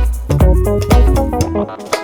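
Background music: an upbeat instrumental track with plucked guitar-like notes, bass and a steady beat.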